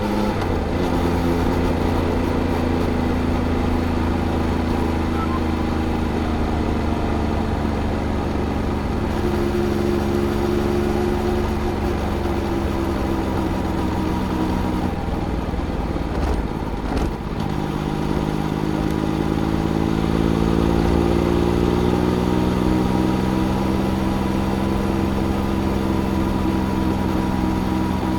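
2018 Triumph Speed Triple RS's 1050 cc three-cylinder engine through its stock Arrow silencers, heard from the rider's seat while riding at fairly steady revs. There is a brief dip a little past halfway through, then the revs climb slowly.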